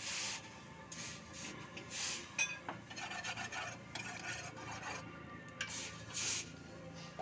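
Steel bolo blade held in tongs being swished back and forth through a basin of quench water during water quenching: repeated swishing surges of water, with a sharp metal clink about two and a half seconds in.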